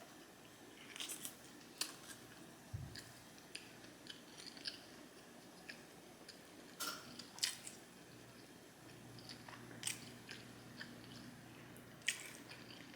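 Quiet close-up chewing of food, with irregular soft mouth clicks and smacks.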